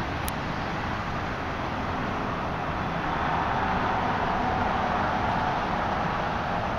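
Steady outdoor background rush with no distinct event, swelling a little about three seconds in and easing off near the end.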